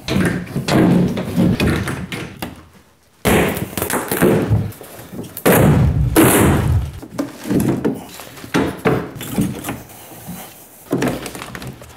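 A plywood shipping crate being dismantled by hand: its wooden panels are pried loose, pulled off and set down, giving an irregular run of knocks, scrapes and thuds. The loudest thuds come about three seconds in and again about halfway through.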